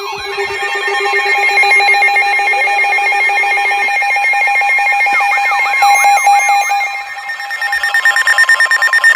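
Several electronic emergency alert alarms sounding together: a rapid pulsing beep over a steady tone, joined about halfway through by repeated rising-and-falling sweeping tones. They signal an incoming weather warning.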